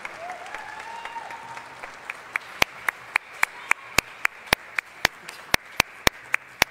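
Audience applause. From about two seconds in, one pair of hands claps close to the microphone, sharp and even, about four claps a second, standing out above the rest.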